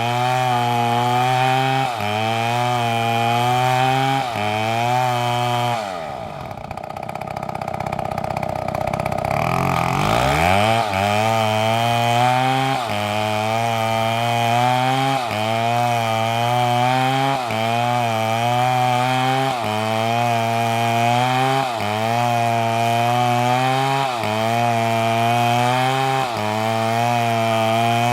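Two-stroke chainsaw running at full throttle, its pitch dipping and recovering about every second and a half as the chain bites into wood. About six seconds in it drops back towards idle, then revs up again around ten seconds and goes back to cutting.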